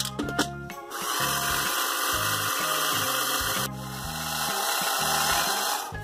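Toy blender's small battery motor whirring, in two runs: one of about three seconds starting about a second in, then a brief dip and another of about two seconds that stops near the end. Background music plays under it.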